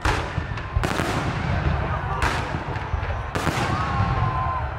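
Fireworks display: four sharp bangs of aerial shells bursting, roughly a second apart, over a steady low rumble.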